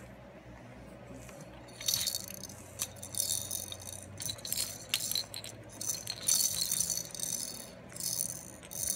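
Plastic baby rattle shaken over and over, its contents clattering in a quick series of short, bright shakes that begin about two seconds in.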